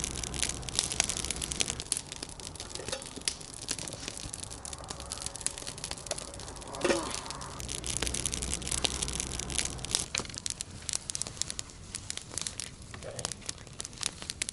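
Wood campfire crackling, with sharp snaps and pops scattered throughout and one brief louder sound about seven seconds in.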